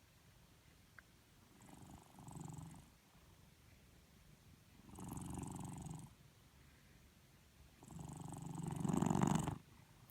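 Cat snoring in its sleep: three snoring breaths, each about a second long and a few seconds apart, the last the longest and loudest.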